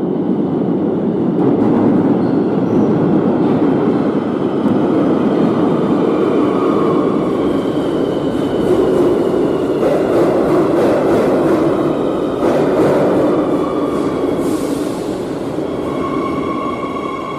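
Madrid Metro 8000-series electric train running, heard from on board: a steady rumble of wheels on rail with a high electric motor whine that comes and goes and shifts in pitch. A run of clicks in the middle, from wheels passing over track joints.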